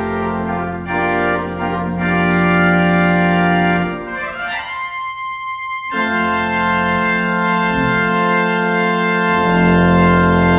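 Organ playing sustained chords as the closing music of the service, with a quieter passage in the middle and a full, loud final chord near the end.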